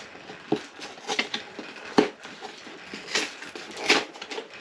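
A cardboard Lego set box being opened and handled by hand: irregular taps, clicks and scrapes of the cardboard flaps, with the sharpest knocks about two seconds and four seconds in.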